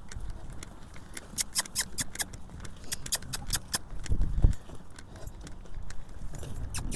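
Horses walking and trotting on wet pasture, hooves thudding on the soft ground, with bursts of quick light metallic rattling from a hay cart being pulled along. A low thump comes about four seconds in.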